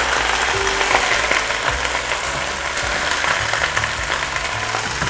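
Onion rings sizzling and crackling as they fry in hot olive oil in a pot, stirred with a wooden spoon.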